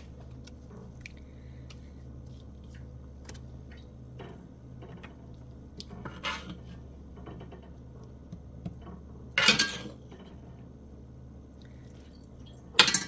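Kitchen handling sounds: scattered small clicks and clinks of dishes and utensils over a steady low hum, with three louder brief clatters about six seconds in, near nine and a half seconds (the loudest) and at the very end.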